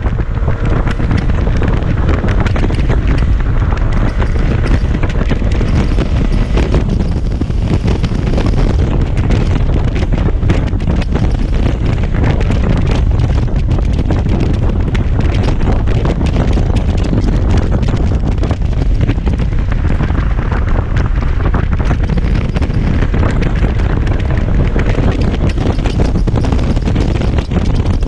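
Heavy wind buffeting on the microphone of a Kymco Xciting 250i maxi-scooter being ridden, a steady, dense rush with the scooter's engine running underneath.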